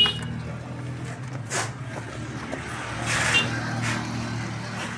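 A motor vehicle's engine running steadily with a low hum, with a couple of brief noisy bursts, the louder one about three seconds in.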